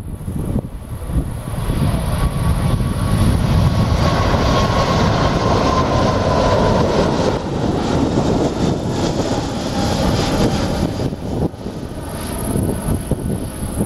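Four-engine Airbus A380 jet at takeoff power, climbing out: a heavy low rumble under a broad rush of jet noise, loudest in the middle, with a faint whine that slowly falls in pitch as it passes.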